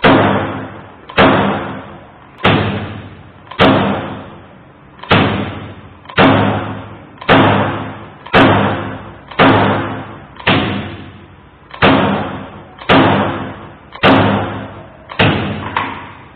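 Electric automatic stapler firing staples into a stack of paper, about fifteen strokes at roughly one a second. Each stroke is a sharp, loud clack with a ringing tail that fades before the next.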